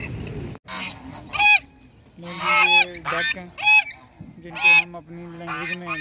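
Domestic geese honking, loud repeated calls about one to two a second, some of them drawn out. It starts about half a second in, after a short stretch of steady background noise that cuts off abruptly.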